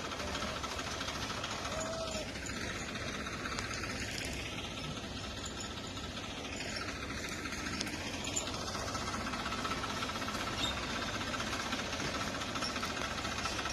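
Mahindra 495 DI tractor's three-cylinder diesel engine running steadily.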